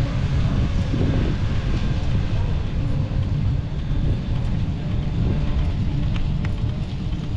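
Wind buffeting the microphone, a dense low rumble that runs on unbroken, with people's voices faintly in the background.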